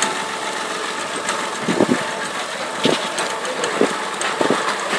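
Tractor diesel engine idling steadily, with a few short louder sounds on top.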